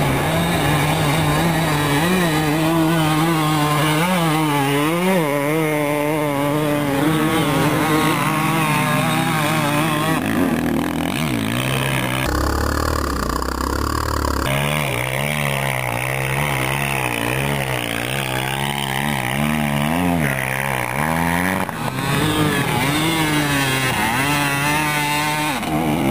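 Two-stroke 250 dirt bike engines revving hard and easing off again and again, the pitch rising and falling, as riders climb a steep dirt hill.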